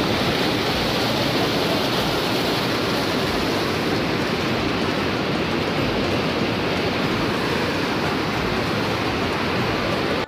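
Whitewater mountain river rushing over rocks just below a log crossing, a steady roar of rapids.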